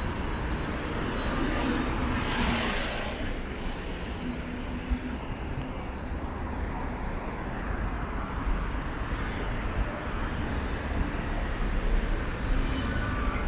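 City street traffic: a steady rumble of cars, with one vehicle swelling louder as it passes about two to three seconds in.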